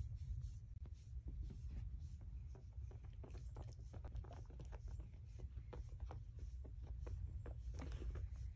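Soft scratchy rustling and small clicks as a bare foot rubs a small dog's coat and the dog shifts about on a rug, thickening from about three seconds in, over a low steady rumble.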